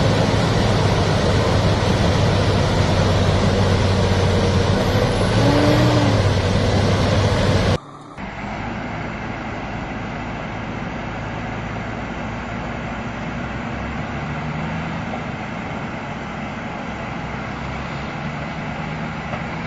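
Heavy vehicle engine noise running steadily, in two clips: louder for the first eight seconds, then it cuts to a quieter engine hum. A short tone rises and falls about five to six seconds in.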